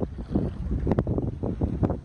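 Wind buffeting the microphone, a heavy low rumble, with a few sharp knocks or taps about a second in and again near the end.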